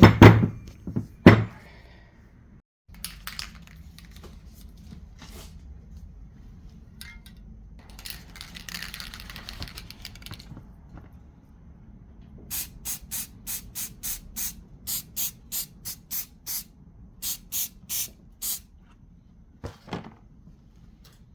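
Spray paint hissing from the nozzle in a quick run of short bursts, about three a second, with a longer, fainter hiss before it: the first coat of paint going onto a brake caliper. A few knocks come in the first second or so.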